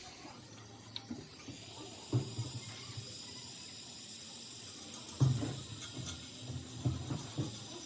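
Several irregular dull knocks, the loudest about five seconds in, over a faint steady hiss.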